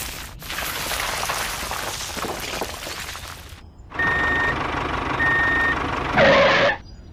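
Sand pouring out of a tipped toy tractor trolley for about three seconds. Then a truck sound: two reversing beeps over steady truck noise, ending in a short louder blast that cuts off suddenly.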